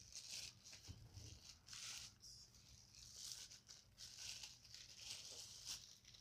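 Faint crinkling and rustling of a thin clear plastic bag as a laptop is pulled out of it, in a string of irregular rustles.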